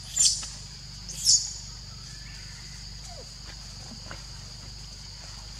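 Two short, high-pitched squeals from baby monkeys, about a second apart near the start, over a steady high insect drone.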